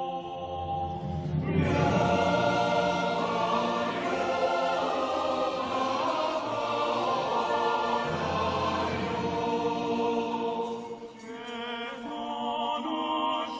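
A choir singing, many voices together, with a brief lull about eleven seconds in before the voices come back in.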